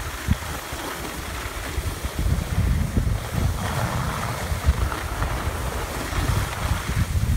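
Wind buffeting the microphone in gusty, low rumbles while moving down a ski slope, with the rushing hiss of skis sliding over packed snow that grows louder about halfway through.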